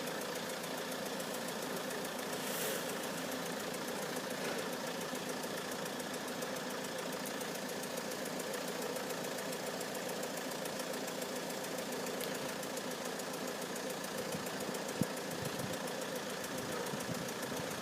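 An engine idling steadily, an even low hum with no change in pitch.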